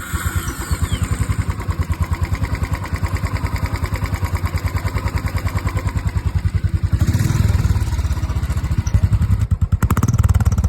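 Royal Enfield single-cylinder motorcycle engine idling with an even exhaust beat, revved briefly about seven seconds in and again near the end. No tappet tick is heard: the worn hydraulic tappets have just been replaced.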